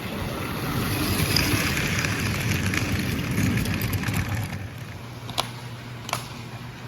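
Gilbert American Flyer S-gauge die-cast train rolling along the track, its rumble growing louder, then fading as it passes. Two sharp clicks near the end.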